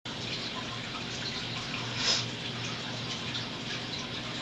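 Steady rain, an even hiss with scattered small drop sounds and one brief louder splash about two seconds in.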